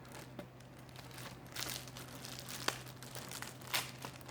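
A small sealed packaging bag crinkling and crackling in the hands as it is squeezed and worked at to be torn open, with a few sharp clicks. A steady low hum underneath.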